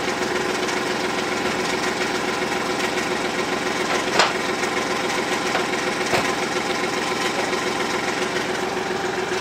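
The small engine of a John Deere Gator–type utility vehicle running steadily at idle. Two sharp knocks come about four and six seconds in.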